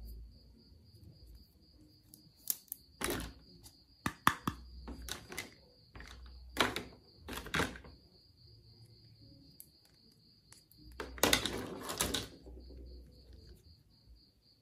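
Hard plastic toy doctor-kit pieces being handled: scattered light clicks and knocks as pieces are picked up, tapped and fitted together, with a denser clatter of plastic a little past two-thirds through.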